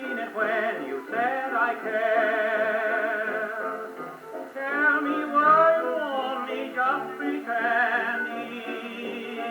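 Columbia 800 acoustic phonograph playing a 78 rpm dance-band record: continuous band music with a wavering vibrato melody line, thin and boxy with no deep bass or high treble.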